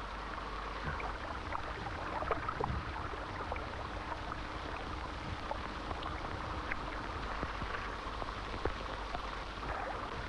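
Steady hiss from an old film's optical soundtrack, with scattered crackles and pops and a faint low hum, and no dialogue or music over it.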